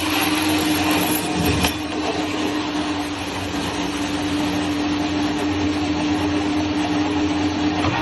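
CNC metal spinning machine running: a steady machine noise with a constant hum, and a short knock about a second and a half in.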